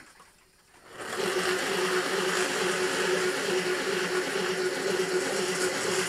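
N gauge model locomotive's small electric motor running with a steady whine, starting about a second in, as the train is driven on the track.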